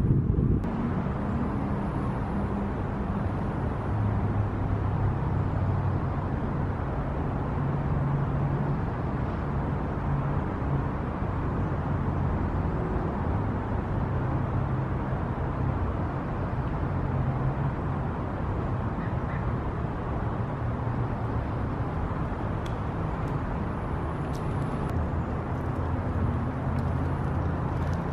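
Steady outdoor background noise with a low hum that swells and fades in stretches of a few seconds, like an engine running somewhere nearby.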